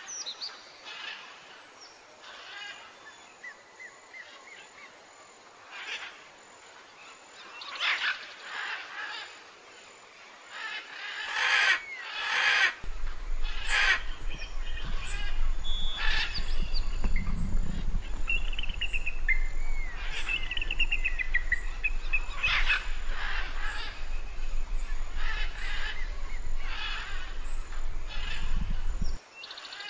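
Birds calling in the wild: repeated short chirps and trilled calls, with a steady low rumble that comes in about halfway through and cuts off suddenly near the end.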